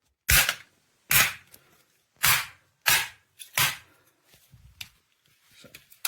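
Sharp knocks and clicks of a plastic smoke detector housing being handled: five loud knocks in the first four seconds, then fainter clicking.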